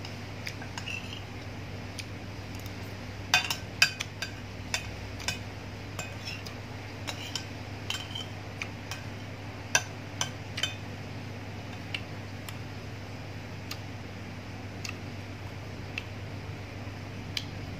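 Metal spoon clinking and scraping on a ceramic plate as rice is scooped up. The clinks are scattered, with a quick run of the loudest about three to four seconds in and another around ten seconds.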